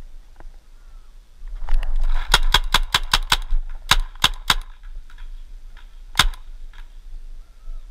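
Paintball marker firing a rapid string of about ten shots, around five a second, then a single further shot about two seconds later.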